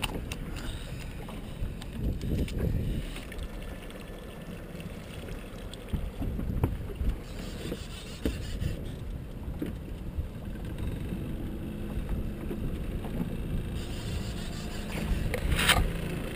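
Wind buffeting the microphone and choppy water slapping against a small fishing boat's hull, with a few brief knocks around the boat.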